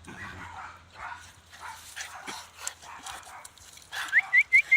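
A dog yipping: a quick run of five or six short, high, rising yelps about four seconds in, after faint scattered rustling.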